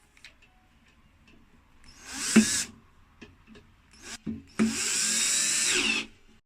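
Power drill driving screws: a short whirring burst about two seconds in, then a longer run of about a second and a half near the end, with the motor's pitch rising and falling as it turns.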